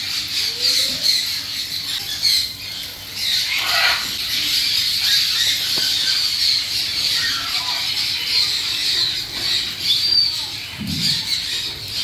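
A flock of caged parrots chattering with frequent squawks, a dense high-pitched chorus with short individual calls rising out of it.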